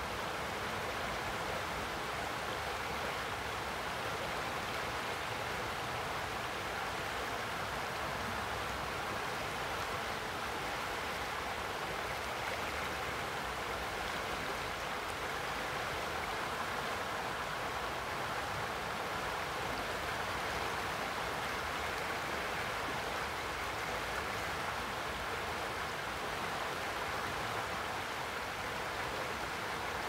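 Boise River in spring flow, rushing and splashing through a shallow riffle around a half-submerged log: a steady, even rush of water.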